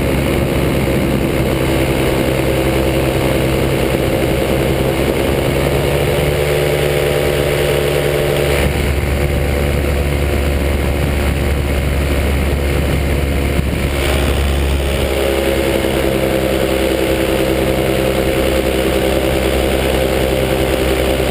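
Paramotor engine running steadily in flight. Its note changes about nine seconds in and settles back to the earlier steady note around fourteen seconds.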